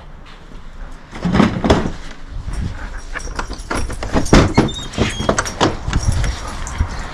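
Irregular clanks, knocks and rattles of metal dog-kennel hardware (cage and tie-out chain) being handled, with brief high metallic rings among them.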